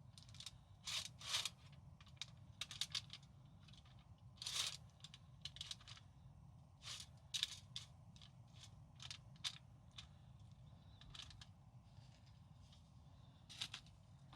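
Kitchen preparation handling noises: scattered short clicks, clinks and knocks at an irregular pace, over a faint steady low hum.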